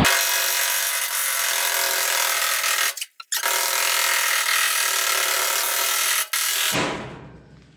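Electric drill running at speed, drilling spot-weld holes in a sheet-steel strip. It runs steadily, stops briefly about three seconds in, runs again, then winds down near the end.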